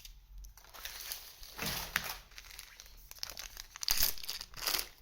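Foil booster-pack wrapper of a trading card pack crinkling and tearing as the pack is opened and handled, in several short bursts.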